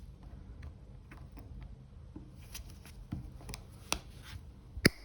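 Rimowa aluminum iPhone case being flexed as its hard plastic backing is worked loose from the aluminum shell: scattered small clicks and creaks, with one sharp click near the end.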